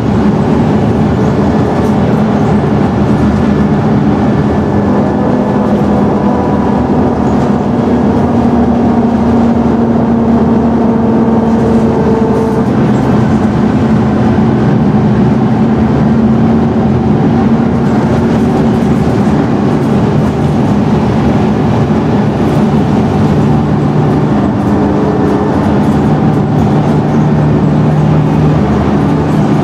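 Scania N113DRB double-decker bus's straight-six diesel running under way with a steady rumble, its engine note rising and dropping a few times as the bus changes speed.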